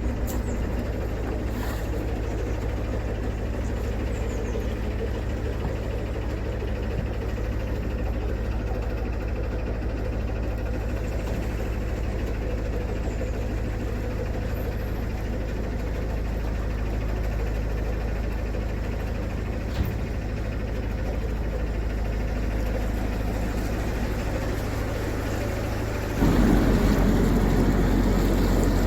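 Narrowboat engine running steadily at low revs, then revving up suddenly and louder about 26 seconds in.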